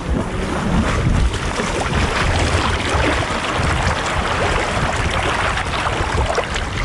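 Water splashing and churning as several men wade and swim across a river pushing floating packs, in a continuous irregular patter of small splashes over a steady low rumble.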